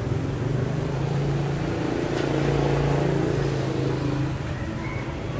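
A motor vehicle engine running with a steady low hum in the background, which gets a little louder around the middle.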